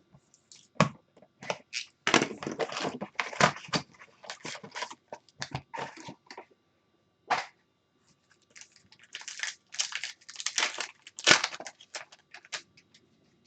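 Packaging of a box of hockey trading cards crinkling and tearing as it is opened: many irregular, short rustles, with a short lull a little past halfway.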